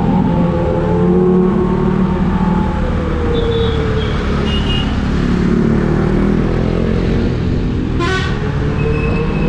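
Supercharged Kawasaki Ninja H2 motorcycle engine running through city traffic, its pitch falling and rising as the throttle changes. Short car horn toots sound around the middle, and a sharper horn blast comes near the end.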